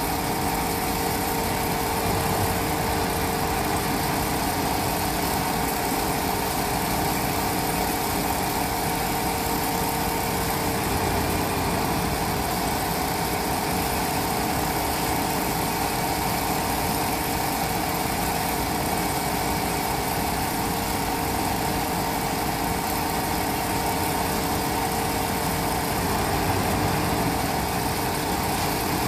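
Kubota ER112 single-cylinder diesel engine running steadily at an even speed.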